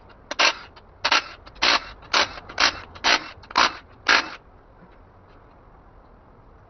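Repeated hand rubbing strokes, about two a second, eight in a row, stopping about four seconds in.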